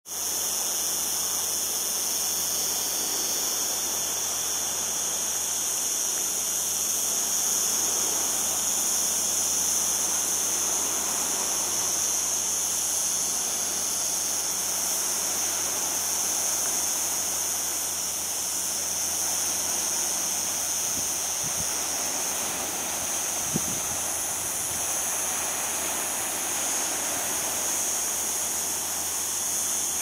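Cicadas singing in a steady, high-pitched chorus over the continuous wash of sea surf.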